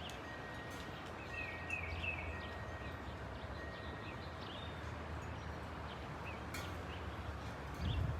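Low steady rumble of a Boeing 747-400's jet engines, distant, growing louder and choppier near the end, with small birds chirping in short repeated calls over it.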